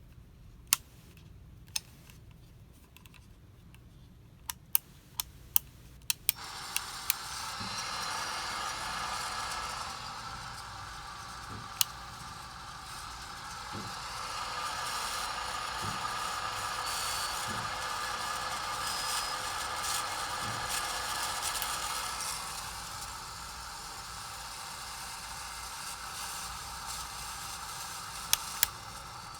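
Several sharp clicks, then a Casablanca Spirit of Saturn ceiling fan running with a steady whirring grind from its bad motor bearings. The noise grows louder and eases off over about twenty seconds, then stops near the end, followed by two more clicks.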